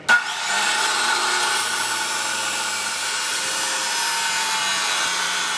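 14-inch Porter-Cable abrasive chop saw switching on with a sudden jump in level, then running steadily as it cuts through a small piece of steel angle iron.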